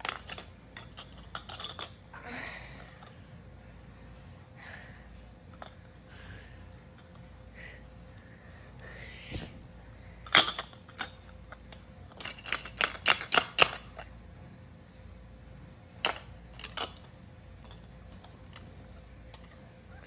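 Hard plastic toy pieces, hollow ball-shaped halves of a fitting toy, clicking and knocking together in scattered sharp clacks. About two-thirds of the way through comes a quick run of about eight clacks.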